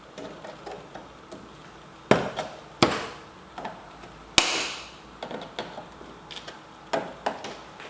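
Plastic knocks and clicks as the rear access cover of a BMW M3 headlight is pushed and snapped back into place, in a handful of separate sharp hits, the loudest near the middle.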